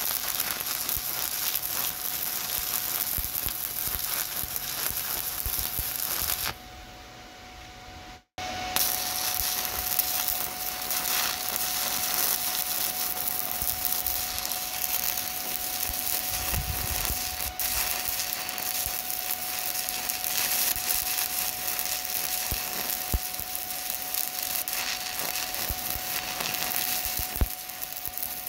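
Stick-welding arc with a 7018 electrode, crackling and sizzling steadily over a faint steady whine. It breaks off for about two seconds around a quarter of the way in, then the crackle resumes.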